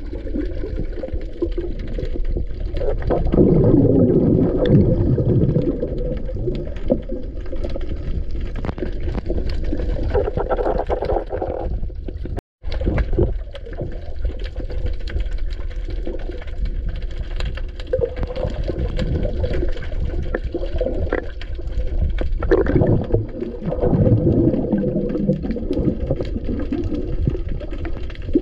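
Muffled, low water noise heard underwater around a free diver: gurgling and bubbling that swells a few seconds in and again near the end, with a momentary cut to silence about halfway through.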